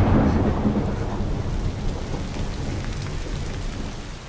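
Thunder rumbling and slowly fading after a loud clap, over the steady hiss of heavy rain starting to pour.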